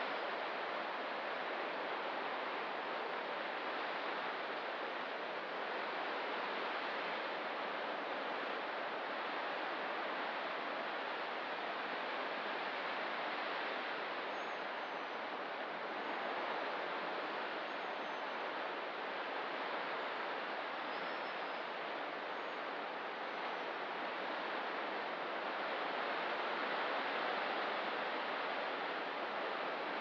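Ocean surf washing in as a steady rushing hiss that rises and falls only slightly. A few faint high bird chirps come in around the middle.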